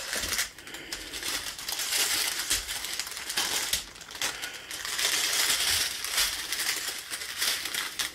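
Thin plastic bags of round diamond-painting drills being handled, crinkling and rustling continuously.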